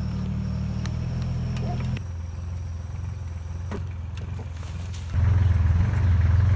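Schäffer 2030 compact loader's diesel engine running steadily; its note drops about two seconds in, then grows clearly louder just after five seconds in.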